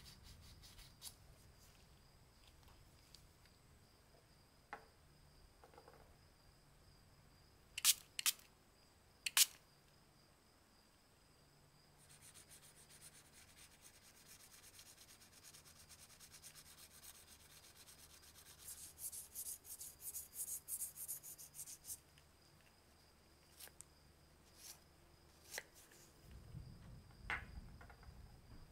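Sandpaper rubbing by hand on a small brass lighter part: a soft, high, scratchy rubbing through the middle that turns into quick back-and-forth strokes toward its end. Before it come a few sharp clicks, the loudest sounds, and a faint steady high tone runs underneath.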